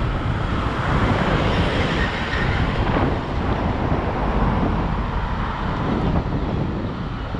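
Steady rushing wind and road noise of a moving ride, with a low rumble.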